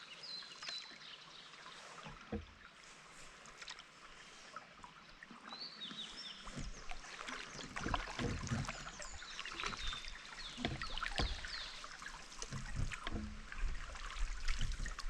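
Canoe paddling on calm water: paddle strokes with swishes and drips of water, growing louder from about halfway through. Short high bird chirps sound now and then.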